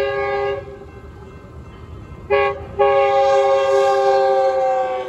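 Metrolink commuter locomotive's air horn sounding a chord of several tones as it approaches a grade crossing. The end of one long blast stops about half a second in, then comes a short blast a little after two seconds in and a long blast just under a second later, its pitch sagging slightly toward the end. This is the standard crossing signal, long, long, short, long.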